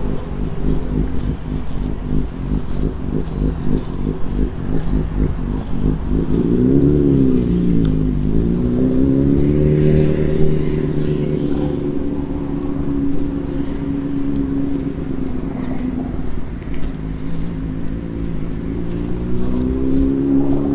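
Motor vehicle engine running close by, its pitch dipping and then rising again about seven seconds in and climbing once more near the end as it changes speed.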